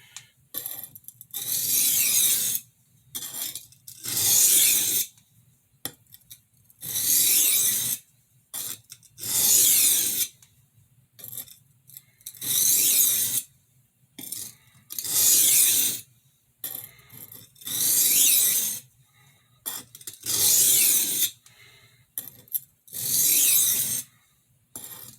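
Steel knife edge stroked across a 240-grit medium Norton sharpening stone, nine long scraping strokes about two and a half seconds apart with fainter short scrapes between. The edge is being refined to clear the scratches left by a 140-grit diamond plate.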